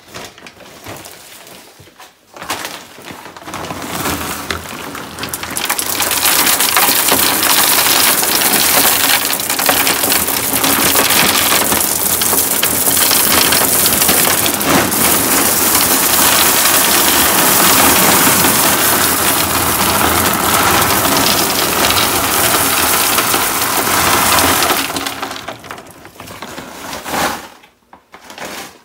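Water softener salt pellets pouring from a bag into a water softener's plastic brine tank: a steady rushing rattle of pellets cascading onto the salt pile. It builds over the first few seconds and tapers off near the end as the bag empties.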